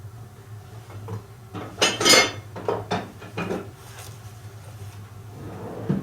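Metal hand tools knocking and clinking against one another on a workbench as a hammer is picked up: a cluster of irregular clatters lasting about two seconds, starting a second and a half in.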